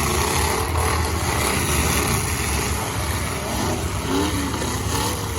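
Several demolition derby cars' engines running and revving together in a loud, steady mix, with no single crash standing out.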